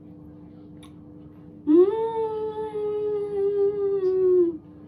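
A woman's closed-mouth "mmm" hum while chewing a soft candy. It starts with a quick rise, is held for about three seconds and sags slowly in pitch, an appreciative sound at the taste.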